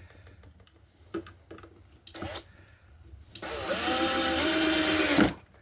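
Power drill driving a screw into a pine board: a brief trigger blip about two seconds in, then one steady run of about two seconds with the motor pitch sagging slightly as the screw seats, stopping abruptly near the end. Light clicks and knocks of the wood being handled come before it.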